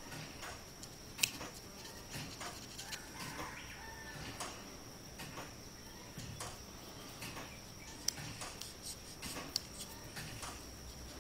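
Pencil lead scratching on paper as it traces around the teeth of a wooden gear, with sharp ticks about once a second and a thin, steady high whine underneath.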